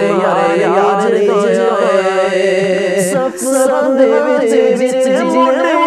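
Unaccompanied devotional singing by a male voice, a naat-style chant in praise of the Prophet's Companions, with a held, ornamented melody. The singing pauses briefly about three seconds in.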